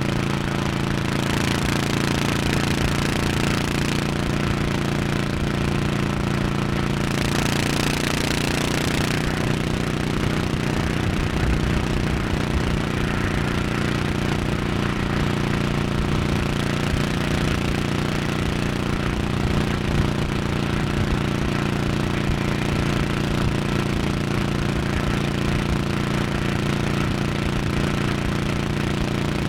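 Honda 1100 cc motorcycle engine running steadily at highway cruising speed, a constant engine note with no gear changes. A rushing hiss swells over it twice in the first ten seconds.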